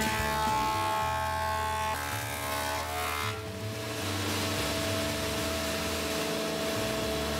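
Thickness planer running as a glued-up hardwood strip panel is fed through it, with background music over it.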